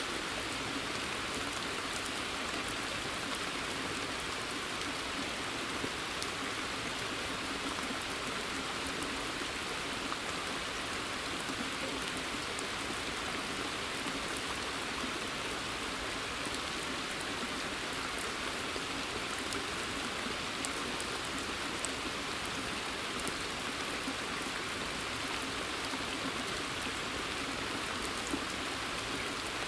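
Steady rain falling on a forest and onto a pond's water surface, with an even hiss and scattered individual drop ticks.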